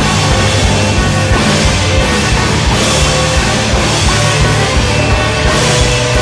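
Loud, dense instrumental noise-rock from a rock rhythm-section ensemble, with steady low drones under frequent drum-kit hits, recorded in a reverberant room.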